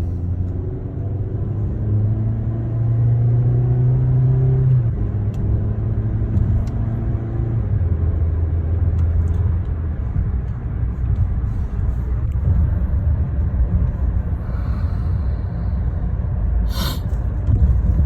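2013 Chevrolet Sonic's four-cylinder engine running while driving, heard from inside the cabin over road rumble; its note climbs in steps and drops back a few times as it goes through the gears. A sharp click near the end.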